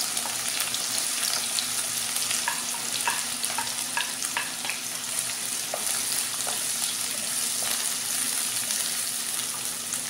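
Freshly added chopped onions sizzling in hot oil in a nonstick wok-style kadai, with a steady frying hiss. A wooden spatula stirs them, giving a few light clicks and scrapes against the pan, mostly in the first half.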